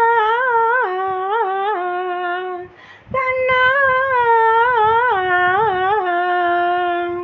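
A high solo voice singing without words and without accompaniment: two long phrases of held notes decorated with quick wavering turns, each stepping down in pitch, with a short breath about three seconds in.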